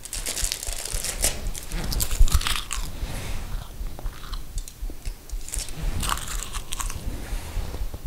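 A person chewing and crunching food, close-up, in irregular crackly bites over a low steady hum.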